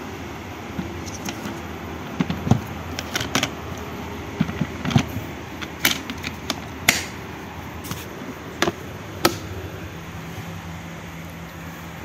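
A series of sharp plastic clicks and knocks, about a dozen spread over several seconds, from handling a Krisbow FRVCW12 wet-and-dry vacuum cleaner's lid and yellow clamp latches, over a steady background noise. The vacuum is not yet running.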